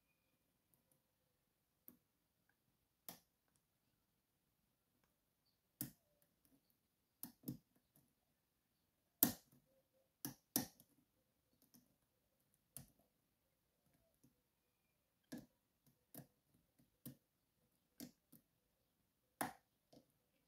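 Faint, sparse, irregular clicks of a hook pick working the pin tumblers in a Schlage Primus cylinder's keyway under tension, while the main stack is being picked; the sharpest click comes about nine seconds in.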